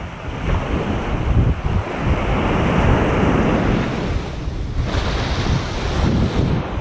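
Small surf waves breaking and washing up the beach, with wind buffeting the microphone.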